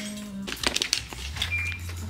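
Shop ambience: a low steady hum with a few light clicks and knocks, and one short high beep a little past the middle.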